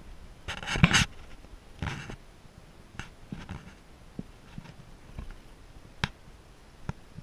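Handling noise from a handheld camera: a loud brief rustle about half a second in, a softer one near two seconds, and scattered sharp clicks.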